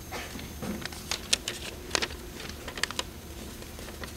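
Scattered sharp clicks and light knocks with faint rustling, over a steady low hum.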